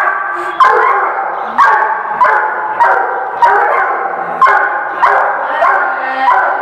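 Dog barking over and over, about ten loud barks at roughly two a second.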